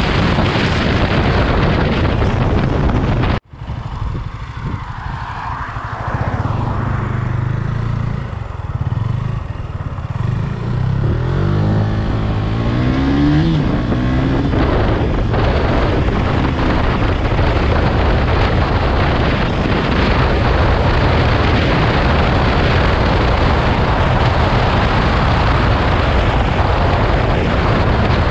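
KTM Duke 125's single-cylinder four-stroke engine running under way, heard with heavy wind noise. About three seconds in the sound drops out for an instant. The engine then comes through more clearly, rising in pitch as it revs up around twelve seconds in, before loud steady engine and wind noise return.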